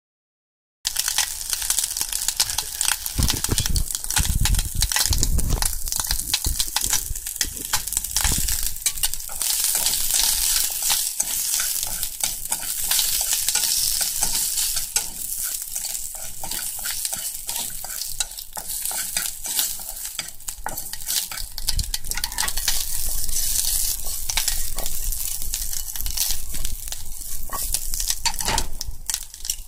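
Asparagus and bacon sizzling in a nonstick frying pan over medium heat, with the spatula scraping and clicking against the pan as the pieces are stirred. A few dull knocks sound in the first several seconds.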